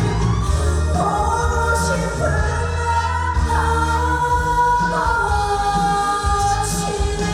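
Trot song performed live: singing in long held notes that slide between pitches, over a full band backing with a steady bass.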